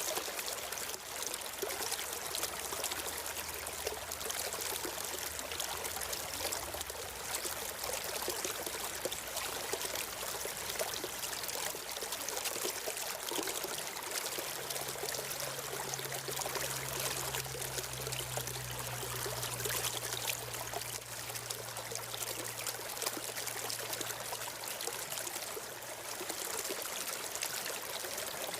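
Stream water flowing and trickling steadily, with a faint low hum in the middle.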